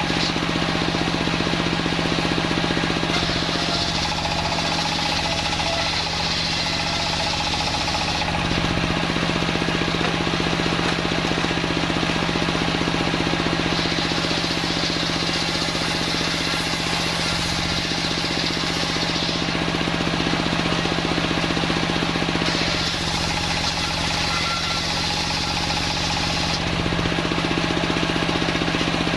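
Homemade circular sawmill running steadily, its blade cutting through old timber. The cutting noise grows and eases in stretches of a few seconds over a constant machine hum.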